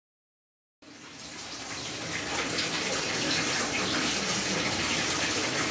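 Water running from a tap into a bathtub, a steady rush that starts about a second in and grows louder over the next second.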